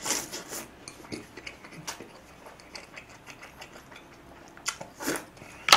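A person eating stew from a spoon: soft mouth sounds of sipping and chewing with small wet clicks, and a sharp click near the end.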